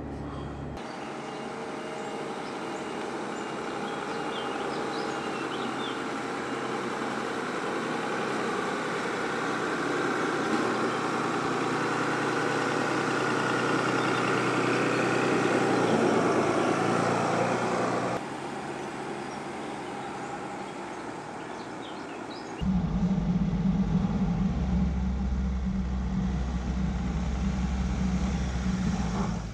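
Mercedes-Benz G-Class running at crawling speed, its engine and driving noise building steadily before cutting off abruptly about two-thirds of the way through. Near the end a louder, deeper steady engine hum takes over.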